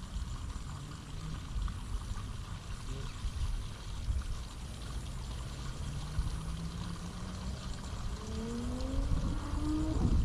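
Water running and trickling in a drain ditch, over a steady low rumble. Near the end a low hum rises in pitch and grows louder.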